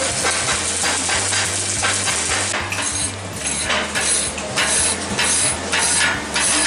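Electric arc welding: the arc crackling and sizzling like frying, over a steady low hum. From about two and a half seconds in, the crackle comes in surges, roughly two a second.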